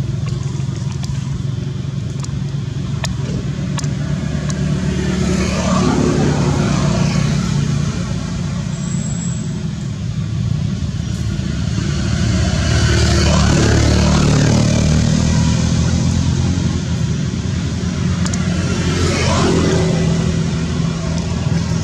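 Road traffic: a steady low engine hum with three vehicles passing, swelling and fading, the loudest about halfway through.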